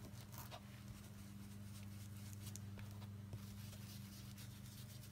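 Faint scuffing of an ink blending tool being rubbed and dabbed over cardstock through a stencil to blend ink, with a steady low hum underneath.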